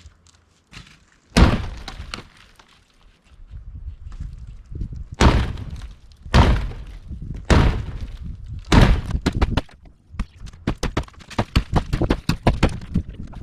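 RV interior wall panelling being knocked and broken out during demolition: a hard knock about a second in, four more heavy knocks about a second apart, then a quick run of smaller knocks and cracks.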